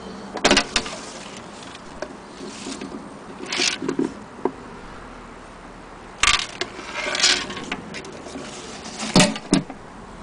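Handling noises from a wooden sewing-machine carrying case: a few sharp knocks, the loudest about nine seconds in, with short rustles between them.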